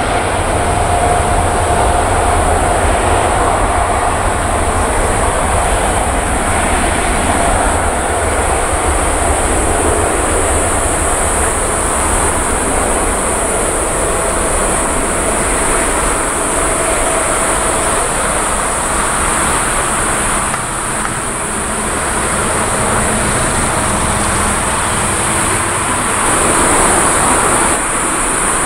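Boeing 787-10 airliner's jet engines at taxi power, heard at a distance: a steady rumble and hiss with a faint wavering whine, over a constant high-pitched hiss.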